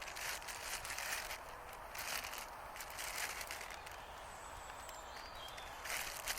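Intermittent rustling in short bursts, with a few faint bird chirps around the middle.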